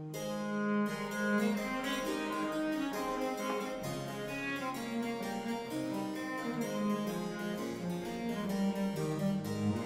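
Harpsichord playing quick runs of plucked notes over a held, bowed bass line from a viola da gamba, in a Baroque instrumental passage without voice.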